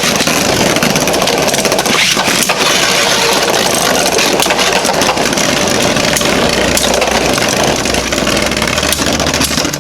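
Two Beyblade spinning tops, a 3D-printed Jynx Ouroboros and a Union Spriggan with metal blades, spinning and colliding in a plastic stadium: a steady, loud grinding whir dense with rapid clicks of the tops striking each other and the stadium walls.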